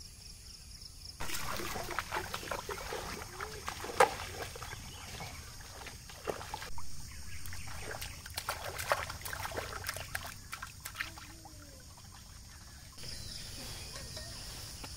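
Children splashing and paddling with their hands in shallow river water: irregular small splashes and trickling, with one sharper splash about four seconds in.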